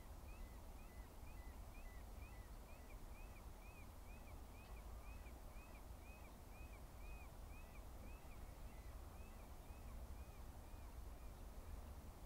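Faint bird calling: a steady series of short, high notes that rise and fall, about two and a half a second, stopping about a second before the end, over a steady low rumble.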